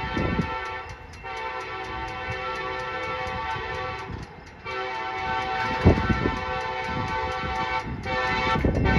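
Amtrak Illinois Zephyr locomotive's chord horn sounding in long blasts with short breaks, a short blast near the end. Wind gusts buffet the microphone underneath.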